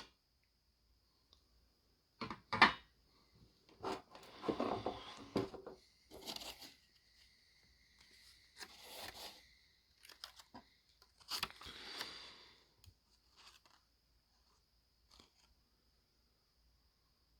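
A knife's original packaging being torn and crinkled open in a string of short, irregular rips and rustles, the loudest a sharp rip about two and a half seconds in.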